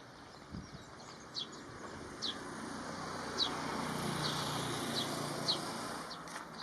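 A vehicle passing by, its noise swelling to a peak midway and then fading, while a bird gives a series of short falling chirps.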